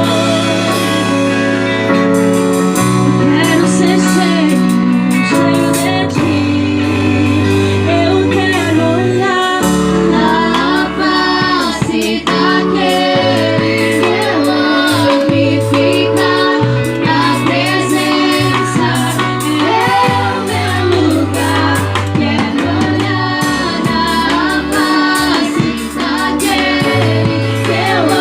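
Christian worship song played by a band, with a sung melody over held chords and a bass line that moves every second or two.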